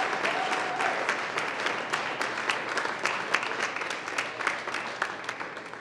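Audience applauding, the clapping thinning out and fading as it goes.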